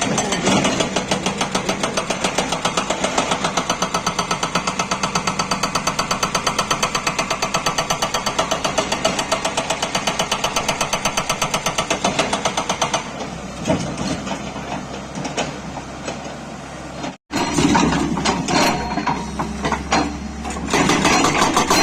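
Hydraulic rock breaker on a Tata Hitachi 200 excavator hammering on very hard stone in a rapid, even rhythm. It stops about 13 seconds in, leaving the excavator engine running with a few scattered knocks, and starts hammering again near the end.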